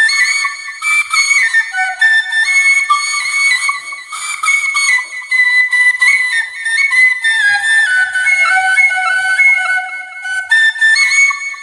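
Bamboo flute (Bengali bashi) playing a slow, sad melody alone, its notes stepping and gliding up and down with no accompaniment.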